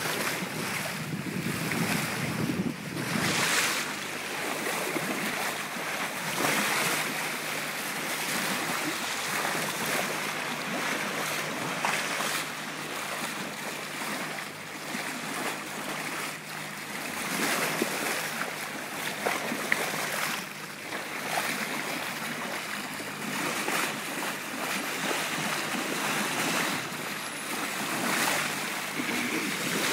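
Boat's bow wave rushing and splashing along the hull as it moves through the sea, with wind buffeting the phone's microphone. It swells and eases every second or two over a faint steady low hum from the boat's motor.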